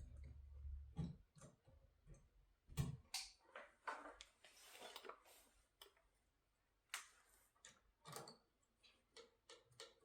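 Faint scattered clicks and taps of electrical wires being handled and twisted together, with a short scraping rub about midway: the neutral wires being tied together in a switch box.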